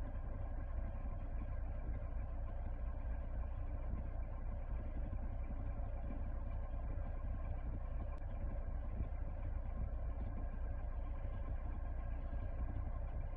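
Lada Niva Legend's 1.7-litre four-cylinder petrol engine idling steadily at operating temperature, heard from inside the cabin.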